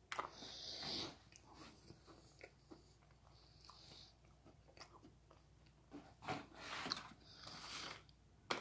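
A person quietly chewing and crunching food, in short irregular bouts.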